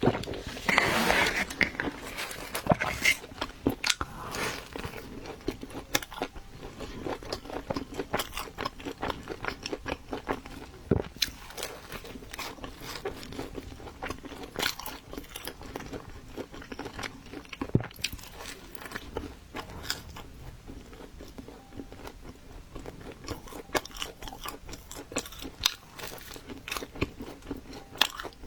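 Close-up mouth sounds of someone biting into and chewing pizza, with many short crisp clicks and crunches throughout. The first few seconds are the busiest and loudest.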